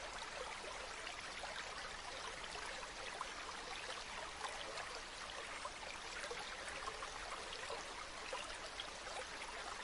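Waterfall and stream water rushing and splashing, a steady hiss dotted with small splashes.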